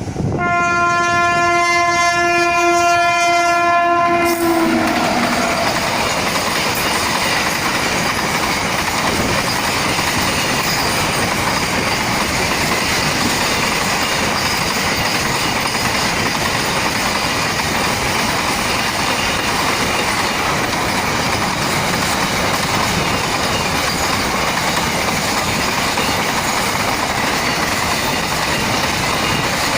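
A WAG-9 electric locomotive's horn sounds one long steady blast, which drops in pitch and cuts off about four seconds in. A long goods train then rushes past at high speed, its wagons rattling over the rail joints.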